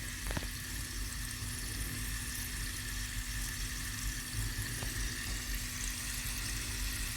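Garlic and mustard seeds frying gently in mustard oil over low heat: a soft, steady sizzle over a steady low hum.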